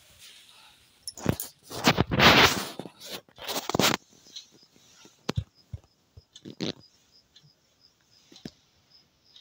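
Rustling and scraping handling noise as a phone is moved about, loudest in a burst in the first half, then a few softer clicks and rubs. A cricket chirps steadily in the background.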